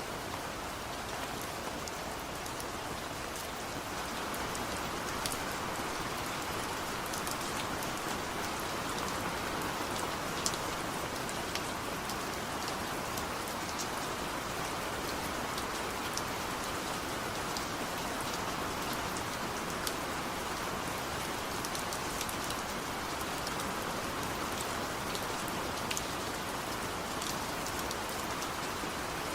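Steady rainfall, an even hiss of rain with scattered sharper drop ticks.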